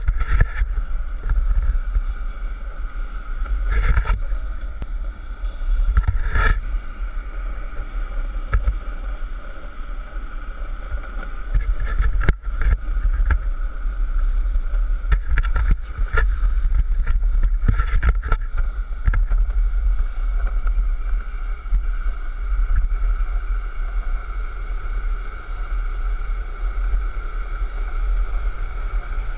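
Longboard wheels rolling fast on asphalt, heavy wind buffeting on the microphone and a steady high hum underneath. A few short knocks at about 4, 6, 16 and 18 seconds in.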